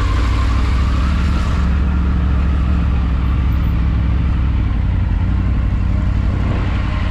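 Motorcycle ridden slowly in town traffic, its engine running at a steady low rumble with road noise.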